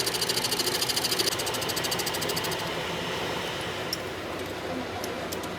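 A machine running with a fast, even ticking that fades out over the first two and a half seconds, leaving a steadier mechanical running noise.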